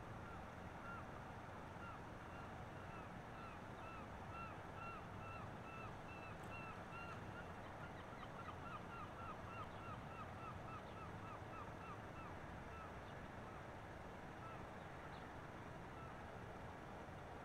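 A bird calling over and over in short arched calls, two to three a second, quickening near the middle and stopping about three-quarters of the way through, over a steady low background rush.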